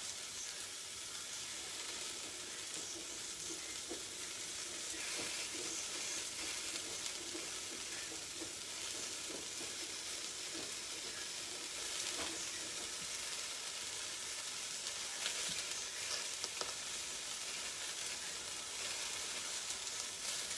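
Baby aubergines and spring onions frying in olive oil in a stainless steel pan: a steady sizzle, with a few light clicks and taps now and then.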